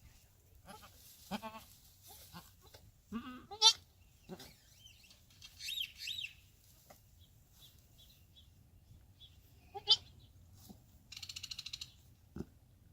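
Goats bleating in short, separate calls scattered through the moment, the loudest about three and a half seconds in, with higher-pitched calls around six seconds and a quick fluttering call near eleven seconds.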